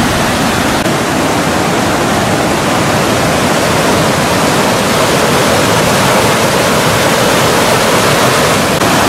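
Fast-flowing flash-flood water rushing steadily, a loud, unbroken noise of water.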